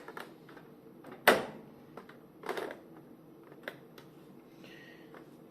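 Scattered light clicks and knocks of a motherboard being handled and settled onto the standoffs in a PC case, with a sharper knock about a second in and another a little over a second later.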